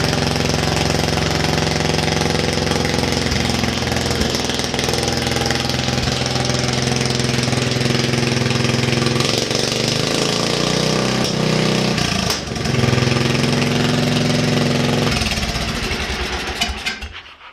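A lawn tractor's 10-horsepower Tecumseh single-cylinder flathead engine running steadily, its pitch wandering a little about halfway through. It winds down and stops near the end.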